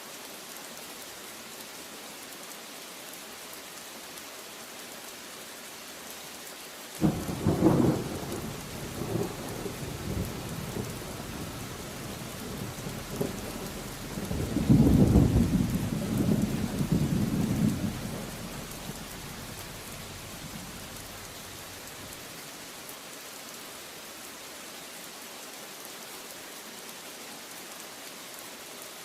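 Steady rain falling, with a clap of thunder breaking suddenly about a quarter of the way in and rumbling on, swelling again to its loudest near the middle before dying away.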